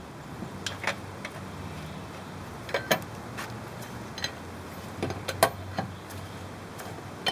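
Irregular metal clinks and taps of a four-way cross lug wrench fitting onto lug nuts and spinning them down on the wheel studs of an alloy wheel, with a few brief ringing clinks.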